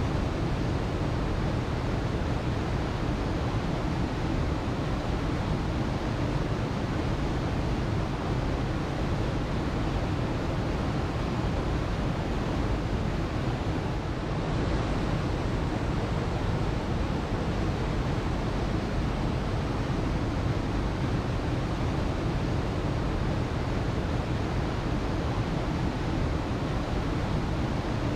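Waterfall: a steady, unbroken rush of falling water, heaviest in the low end.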